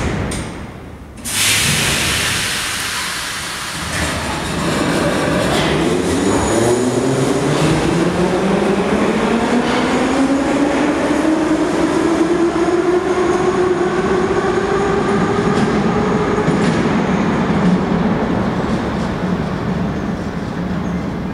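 An 81-717-type metro train pulling away from the platform: a sudden loud hiss about a second in, then the traction motors whine, rising steadily in pitch as the train gathers speed and levelling off, over the rumble of the wheels.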